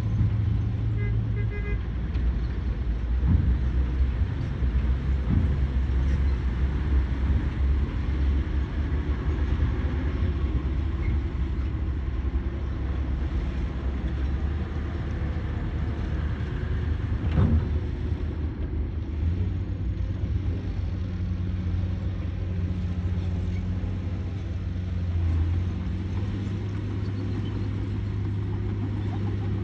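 Excavator's diesel engine running steadily, with a few sharp knocks, one about three seconds in, one near five seconds and one a little past the middle.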